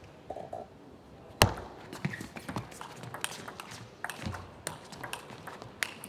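Table tennis rally: the ball clicking off the bats and the table in quick, irregular succession, with one sharp loud hit about a second and a half in. The rally stops shortly before the end.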